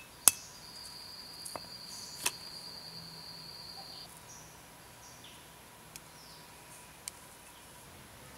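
Sharp stone-on-stone knocks as a hand stone crushes smelted furnace material on a flat stone: one loud knock just after the start, then a few lighter ones. An insect's steady high call runs alongside for about three and a half seconds in the first half.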